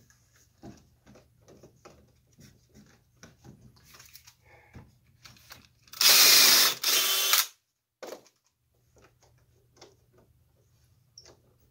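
Cordless drill with a tapered bit boring a pilot hole into a wooden corner block: two short runs, each under a second, about six seconds in. Light clicks and knocks from handling the block and drill come before and after.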